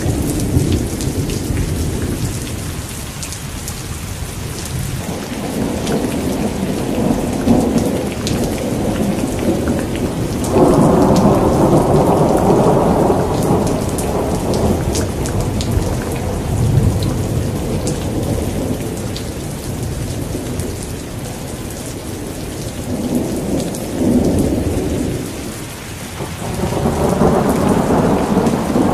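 Thunderstorm: steady rain with fine drop patter, under repeated rolls of thunder that swell and fade. The loudest roll comes in suddenly about ten seconds in and rumbles on for a few seconds, and another builds near the end.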